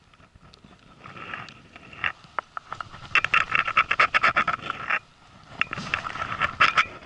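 Baitcasting reel clicking in two rapid runs of ticks, about ten a second, while a hooked fish pulls hard on the line.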